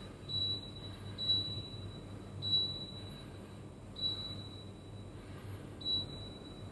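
Short high electronic beeps from a split air conditioner's indoor unit, five of them at uneven intervals as settings are changed, over the steady hum of the running unit.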